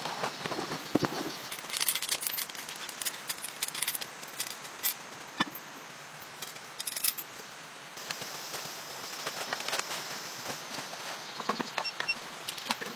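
Camping gear being set up by hand: a string of short clicks, clatters and rustles over a steady hiss.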